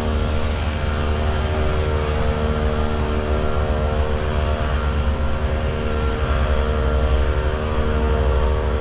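Steady mechanical hum holding a constant pitch, over a low rumble.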